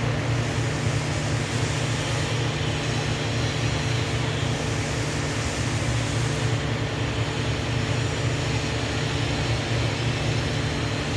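Steady low machine hum with an even hiss from the welding setup while TIG welding a 6-inch pipe.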